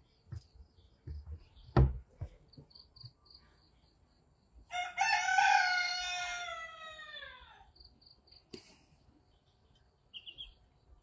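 A rooster crows once, a long call of about three seconds starting about five seconds in and falling in pitch at the end. Before it come a few footsteps on wooden deck boards, one sharp thud about two seconds in, over faint, regular insect chirping.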